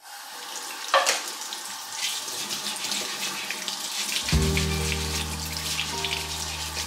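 Kitchen tap running into a stainless steel sink, with a splash about a second in as the stream comes on, and a sweet potato being scrubbed with a bristle brush under the water. Soft music with held low chords comes in about four seconds in.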